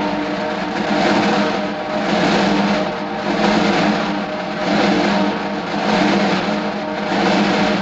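Drum roll sound effect: a sustained, rapid roll that swells and eases about once a second.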